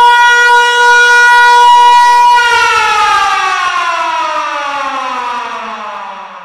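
A loud siren holding one steady tone, then winding down: about two and a half seconds in its pitch starts falling and it fades away.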